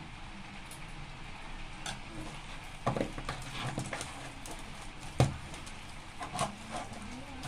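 Hands kneading a soft, wet dough of semolina, flour and palm pulp in a stainless-steel bowl: irregular squishing and scraping, with a few knocks against the bowl. The two sharpest knocks come about three and five seconds in.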